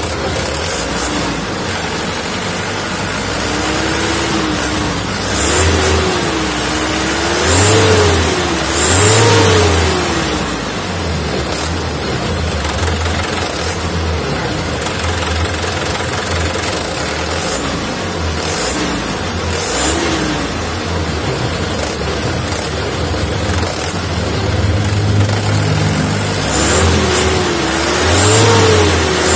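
Mitsubishi Canter truck diesel engine running and revved up and back down in several short blips. Its freshly fitted injection pump has not yet been re-set, and the engine still runs unevenly.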